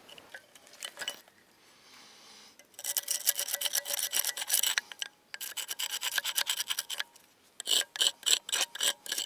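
A hand-held metal tool scraping burnt mould residue and casting crust off a freshly cast cannon barrel, in quick rasping strokes. It is faint for the first few seconds, then comes in runs of rapid strokes with short pauses between them.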